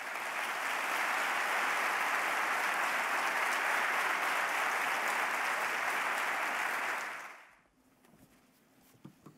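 Audience applause, steady for about seven seconds and then dying away, leaving quiet with a couple of faint knocks near the end.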